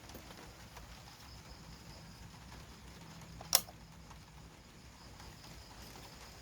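Mitsubishi C48-GM 48-inch ceiling fan running with a faint steady hum. A single sharp click is heard about halfway through.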